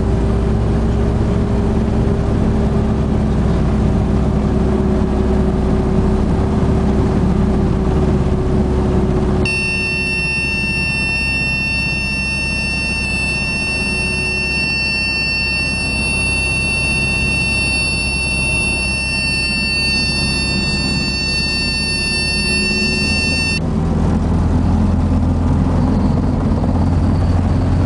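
Robinson R22 helicopter heard from the cockpit during an autorotation: a steady piston-engine and rotor drone. About nine seconds in, a steady high-pitched warning horn starts, with a warning light lit on the panel: the low rotor RPM warning. It holds for about fourteen seconds and cuts off abruptly, and the low engine-rotor drone then grows louder near the end.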